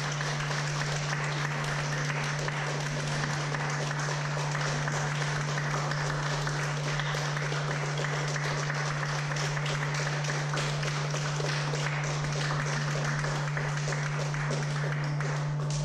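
Audience applauding, the clapping cutting off near the end, over a steady low hum.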